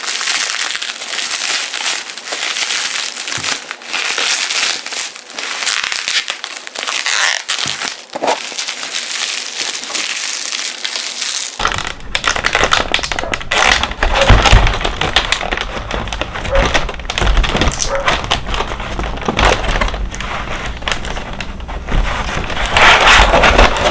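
Plastic packaging crinkling and crackling as it is handled close up. About halfway through, the sound changes and a strong low rumble comes in underneath.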